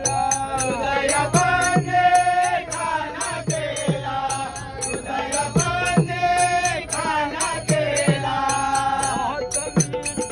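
Men singing a Marathi devotional bhajan (abhang) together. Small hand cymbals strike a steady beat, about three a second, over a hand drum whose bass strokes slide down in pitch.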